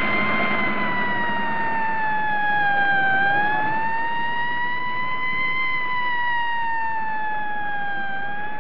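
Ambulance siren wailing slowly, its pitch falling and rising in a long cycle of about five seconds, over a low rumble of the vehicle and traffic.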